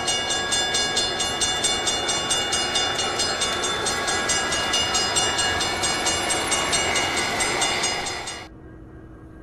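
Railway crossing bell ringing rapidly over the rumble of a passing train, both cutting off suddenly near the end and leaving a faint hum.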